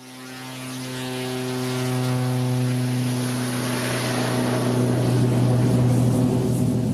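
Single-engine light propeller plane's piston engine and propeller at takeoff power as the plane rolls for takeoff: a steady, deep drone that swells over the first two seconds and stays loud.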